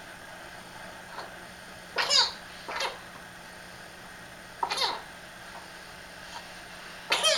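A bout of separate coughs during a nighttime coughing fit: a faint one, then about four louder ones spaced one to three seconds apart, the last near the end.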